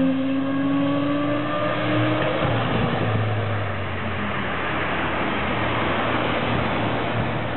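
Motorcycle engines passing and riding away, their note fading out about two and a half seconds in; after that, wind noise on the microphone.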